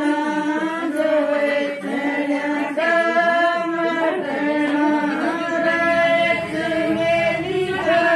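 A group of women singing a Haryanvi jakdi folk song together, voices only. They hold long notes in short phrases that break about every second or so.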